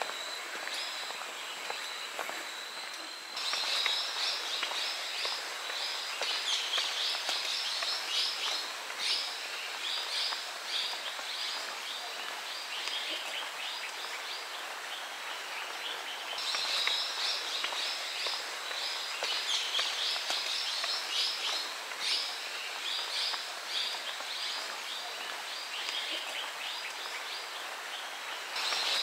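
Birds twittering in a dense, rapid chatter of high chirps over a steady outdoor hiss. A thin steady high tone stops abruptly about three seconds in, where the chatter starts.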